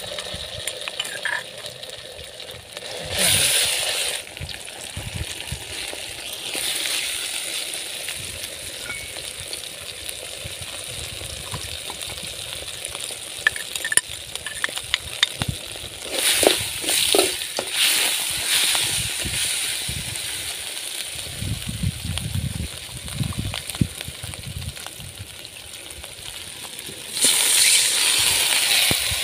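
Onion, garlic and masala paste sizzling as they fry in an aluminium pan over a wood fire, with swells of louder sizzling and scattered clicks. Near the end, water is poured into the hot pan and sets off a loud rushing sizzle.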